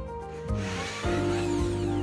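A cordless drill starts about half a second in, grinding into a screw hole of a steel door hinge on a hardwood door, with background music that has a steady beat.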